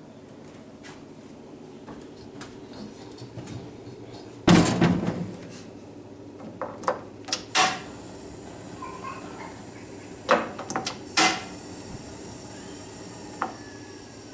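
Stainless steel gas barbecue hood lifted open with a loud metal clunk about four seconds in, then a series of sharp clicks as the burner control knobs are turned to light the burners.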